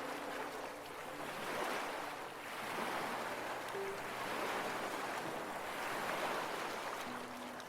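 Gentle ocean waves washing in, the rush swelling and falling back every couple of seconds, with a few soft held notes of background music underneath.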